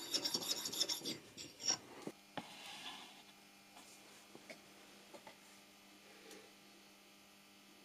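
A small metal part rubbed quickly back and forth by hand on a flat abrasive stone, a fast rasping stroke repeated evenly, as the legs are polished. It stops about two seconds in, leaving a faint low hum and a few light knocks.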